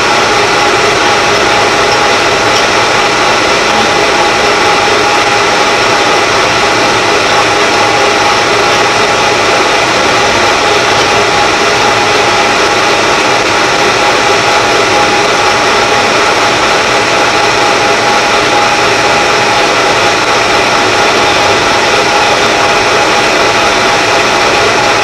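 Harrison Clausing 21x60 lathe running steadily under cut, turning a long steel bar: a loud even machine rush with a steady gear whine of several fixed tones, the tool peeling off chips.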